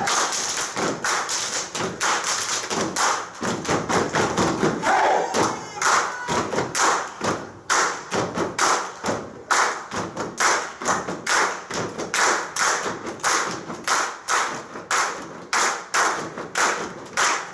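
Body percussion by a whole choir in unison: many people clapping and slapping their bodies together in a quick, steady rhythm of several sharp strokes a second.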